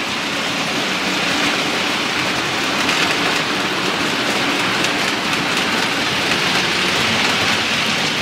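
Hornby OO-gauge Mallard A4 model locomotive and coaches running on the layout track: a steady rolling rattle of small wheels on rails with faint clicking.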